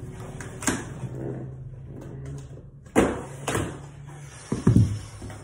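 Cardboard box and its contents being handled: rustling with several sharp knocks and thumps, the loudest about three seconds in and just before the end.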